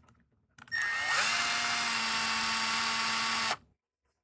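Power drill spinning a screw out: the motor spins up, runs steadily at a high whine for nearly three seconds, then stops suddenly.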